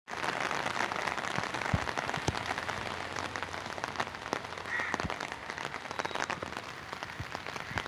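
Rain falling steadily, a continuous hiss dotted with many separate drop impacts.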